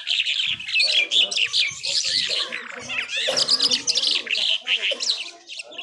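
A lark sings a continuous, rapid, varied song of chirps, trills and quick up-and-down glides, with barely a pause.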